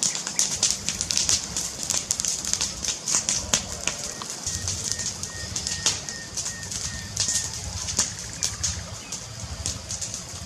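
Wood fire crackling, with dense irregular pops and snaps over a steady low rumble.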